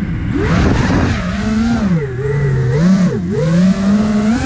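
5-inch FPV quadcopter's brushless motors and propellers whining, the pitch dropping and climbing several times as the throttle is worked through a manoeuvre, with a rush of wind about a second in.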